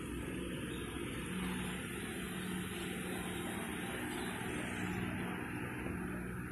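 A steady low mechanical hum with even background noise and no sudden events.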